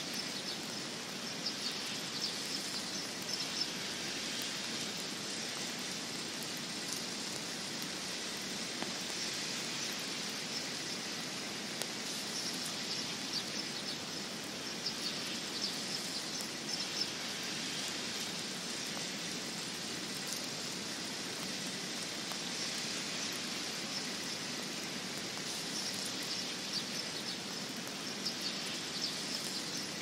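Wet snowfall and wind in pine branches: a steady hiss with an uneven, light patter of flakes on the needles.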